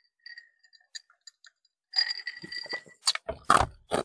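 Irregular clicks and taps, with a short scraping rustle about two seconds in and several sharper knocks near the end.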